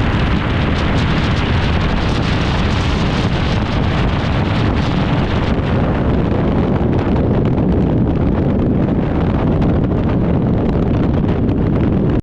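Waterfall rushing: a loud, steady wash of falling water that cuts off suddenly at the end.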